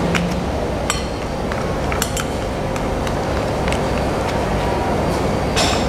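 A silicone spatula scraping and tapping against a glass bowl as sticky beef meatball paste is scraped off it, with a few scattered clinks and a louder cluster near the end, over a steady rushing background noise.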